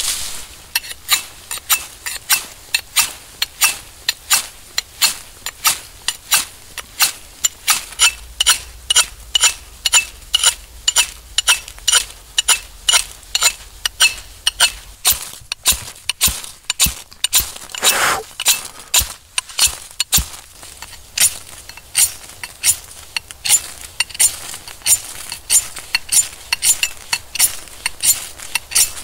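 Steel knife spine struck again and again against a flint, sharp scraping metallic strikes at a steady pace of about two a second, to throw sparks into tinder and light a fire.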